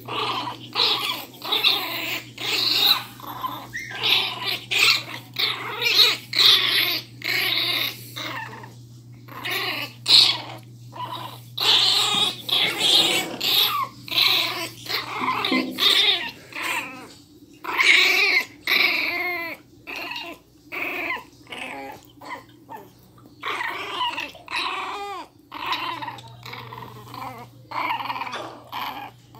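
Miniature pinscher puppies growling in quick bursts, with short high yelps, as they tug at a toy together in rough play.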